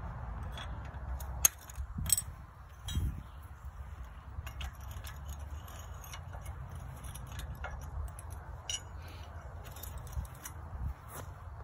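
Light metal clinks and clicks as a steel sickle section is handled and fitted onto a sickle bar mower's knife bar, the sharpest click about a second and a half in.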